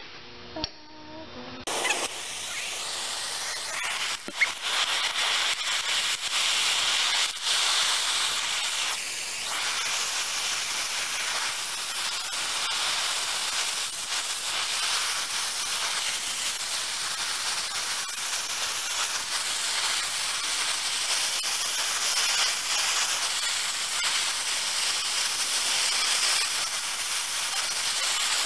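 Oxy-acetylene torch flame hissing steadily as it heats a rock to melting, starting about two seconds in, with a few sharp clicks over it.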